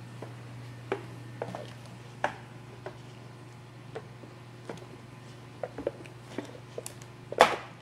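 Fingers picking and scratching at the sealed lid of a paper instant-noodle cup, trying to peel it open: scattered small clicks and crinkles, with one louder crackle near the end, over a steady low hum.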